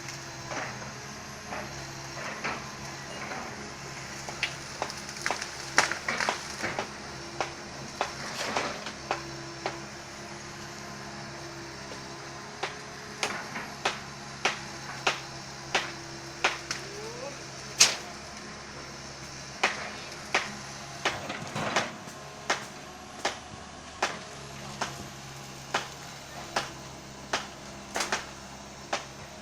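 Komatsu excavator's diesel engine running with a steady hum, under a series of sharp knocks and clacks. The knocks are irregular at first and come regularly, a little under a second apart, from about halfway through.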